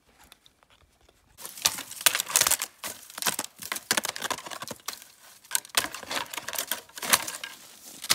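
Close rustling and crunching made of dense, irregular crackles and clicks, starting about a second and a half in after near quiet.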